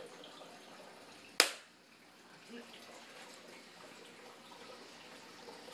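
A single sharp click or knock about a second and a half in, dying away quickly, over faint steady hiss.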